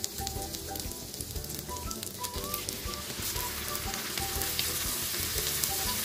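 Hot oil sizzling with minced garlic in a nonstick frying pan as a spatula stirs it. About halfway through, raw rice goes into the oil and the sizzle grows louder and fuller, with the spatula stirring the grains.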